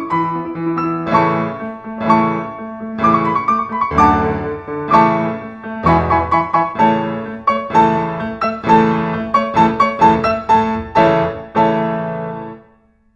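Background piano music, a run of struck notes over a held low note, fading out shortly before the end.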